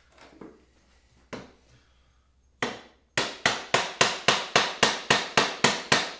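Rubber mallet tapping a corner piece onto a PVC enclosure panel: a few soft knocks as the pieces are handled, then from about three seconds in a steady run of strikes, about four a second.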